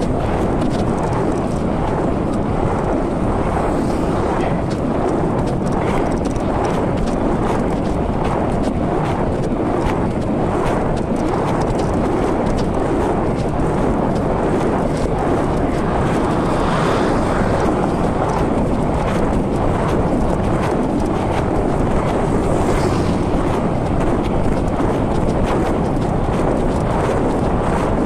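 Steady wind rush buffeting the microphone on a moving mountain bike.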